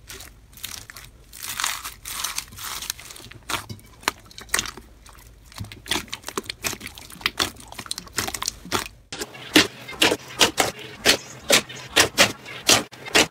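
Hands squishing and poking clear blue slime packed with white foam beads, making soft, irregular crunching and squelching crackles. About nine seconds in, a thick orange slime pressed by hand takes over, popping and clicking sharply about three times a second as air pockets are squeezed.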